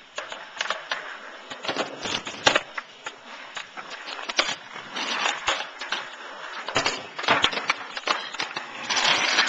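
Skateboards on a concrete driveway: wheels rolling with a rushing noise, broken by many sharp clacks of boards striking the concrete and ramps. The rolling noise is loudest near the end.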